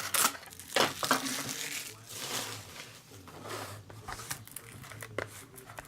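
Trading-card packaging and cards being handled: irregular crinkling and rustling with a few sharp clicks, as packs are opened and cards sorted.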